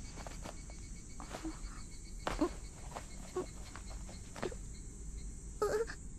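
Steady insect chirring in an outdoor ambience, like crickets, with scattered soft clicks and a few short, brief sounds near the end.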